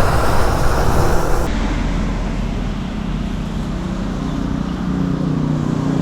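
Steady road traffic noise with a low rumble and hiss, which changes abruptly about a second and a half in.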